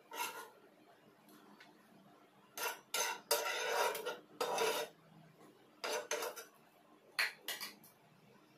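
A spatula scraping across a frying pan in a series of short strokes, one of them lasting about a second.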